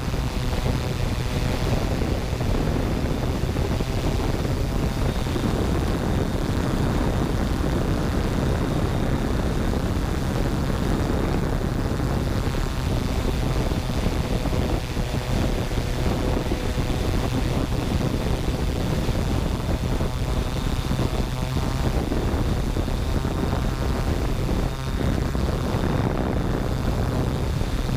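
Yuneec Typhoon G quadcopter's four electric motors and propellers purring steadily, heard close up from the GoPro it carries. The pitch wavers slightly as it manoeuvres in flight.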